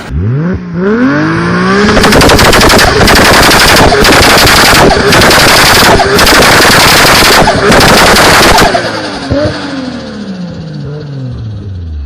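Turbocharged straight-six car engine revving up, then running hard at full throttle with a rapid crackle and several short breaks as the throttle is lifted, where the turbo flutters. Near the end the revs fall away, with one short blip.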